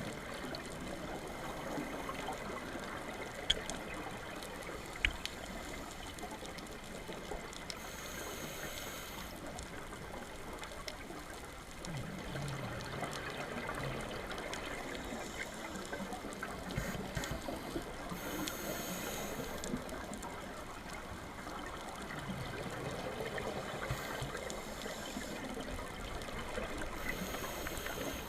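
Underwater ambience from a scuba dive: a steady crackling hiss, with a brighter hissing burst about every nine to ten seconds.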